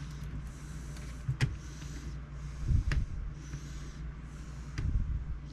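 Hands working the parts of a laptop screen assembly into place: a few sharp small clicks and low bumps, three or so, over a steady low hum.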